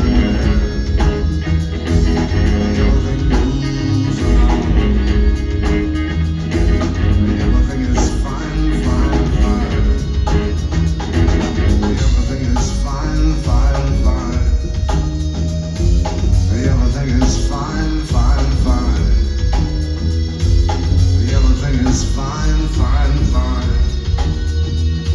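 A rock band playing live, with a heavy bass line and steady drums, loud and unbroken throughout.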